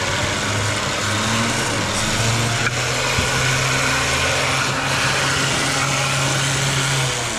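Toyota Land Cruiser's engine running at steady revs. The revs rise a little about two seconds in, hold there, and ease off near the end.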